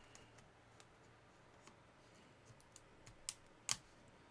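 Screwdriver prying at the glued plastic seam of a laptop battery pack: a few faint plastic clicks, then two sharper clicks about three and a half seconds in.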